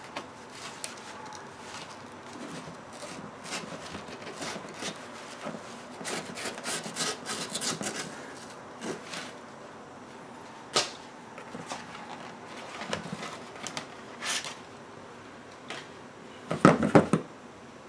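A knife slitting open a paper mailing envelope, with paper rustling and scraping and scattered sharp clicks. Near the end there is a short burst of loud knocks as the small stainless steel plate is taken out and handled.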